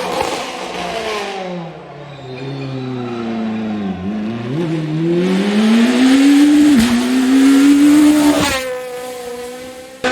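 Rally car engine coming off the throttle with revs falling for a few seconds, then accelerating hard with revs climbing, a quick upshift about two-thirds through, and fading as the car pulls away.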